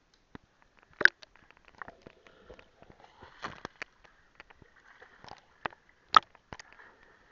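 Water splashing and slapping against a half-submerged action camera's housing, heard as scattered sharp knocks and clicks over faint splashing, loudest about a second in and again about six seconds in.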